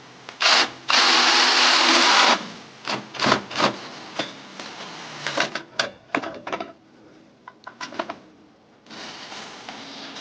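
Brushless cordless 3/8-inch ratchet wrench motor running under the trigger. It gives one short burst, then runs steadily for about a second and a half. A string of short blips follows, growing fainter.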